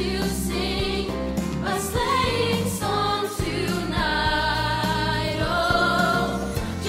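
Middle-school choir singing a Christmas song, several voice parts together over a sustained low accompaniment.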